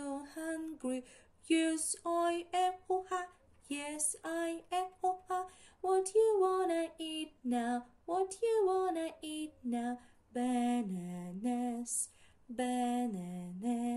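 A woman singing unaccompanied in short phrases, with a few long held notes.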